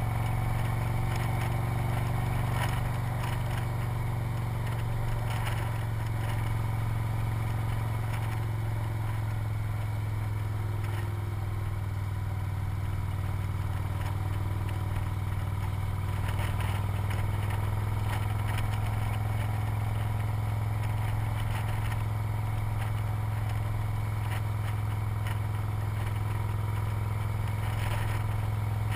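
Victory motorcycle's V-twin engine running steadily under way, with a rush of wind and road noise over it.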